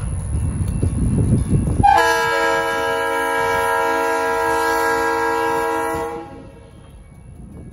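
Low rumble of the passing train, then the air horn of an EMD GP50 diesel locomotive blows one long blast of several notes at once. The blast starts sharply about two seconds in, holds steady for about four seconds and cuts off.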